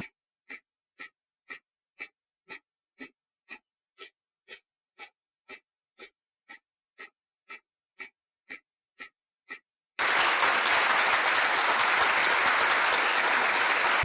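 Countdown-timer ticking sound effect, about two sharp ticks a second for roughly nine seconds, then a sudden steady burst of applause lasting the last four seconds.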